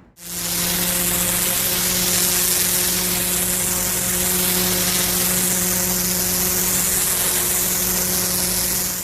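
Pressure washer running, its high-pressure water jet giving a steady loud hiss over the steady hum of the machine, as it strips moss, mud and lichen off a paved driveway.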